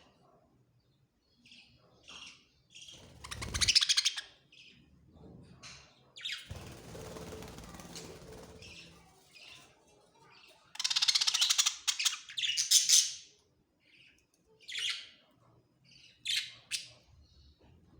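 Budgerigars chirping and chattering in short bursts, loudest in a dense run of calls a little past the middle. A single thump about four seconds in, and a few seconds of rustling noise soon after.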